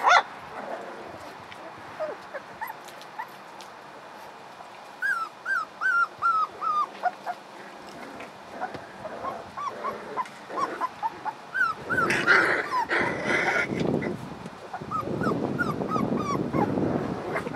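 Vizsla puppies whining and yipping as they play, in short high-pitched cries that come in a run of about six some five seconds in and keep coming on and off. A burst of rustling and scuffling comes about twelve seconds in.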